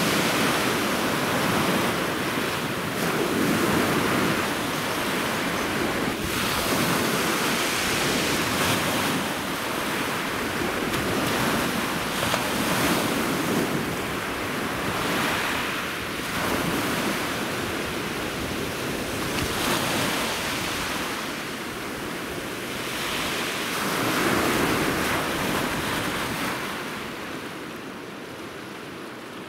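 Sea surf breaking and washing among rocks, swelling and easing every few seconds, growing quieter near the end.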